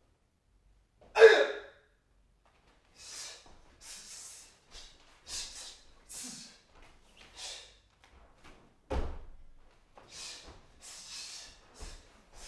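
A martial artist's sharp, hissing exhalations timed with each strike of an elbow-strike form, about a dozen short breaths. A loud sharp burst comes about a second in, and a thump of a foot on the floor mats comes about nine seconds in.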